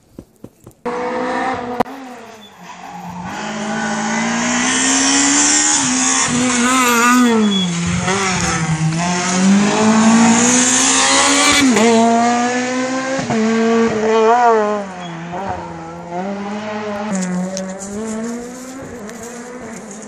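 A competition car's engine being driven hard up a mountain road, revving up and dropping in pitch again and again through gear changes. It comes in abruptly about a second in, is loudest in the middle and fades toward the end.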